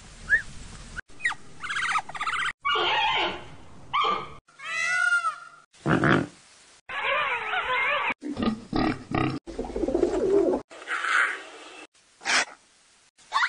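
A rapid series of different animal calls, one short recording after another. About ten in all, each starting and stopping abruptly.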